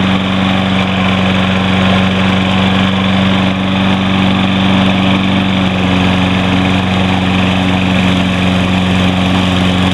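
Toro Recycler lawn mower's 190cc Briggs & Stratton engine running steadily at an even speed, left to run so it can burn off the excess oil from being overfilled.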